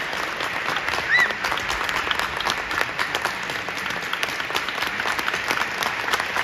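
Theatre audience applauding steadily, a dense patter of many hands clapping as the dancers take their bow. About a second in, a brief high-pitched cheer rises and falls above the clapping.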